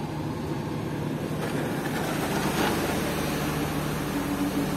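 Steady low hum of the train's machinery heard inside a passenger coach. A rushing noise swells and peaks about halfway through, and a second, higher hum comes in near the end.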